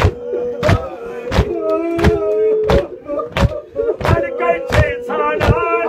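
Male voices chanting a Kashmiri marsiya in long held, wavering notes, over a steady beat of sharp thumps about twice a second.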